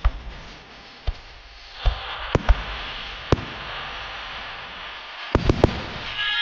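Starmine aerial fireworks bursting: about nine sharp bangs over a steady crackling hiss, including a quick cluster of three near the end.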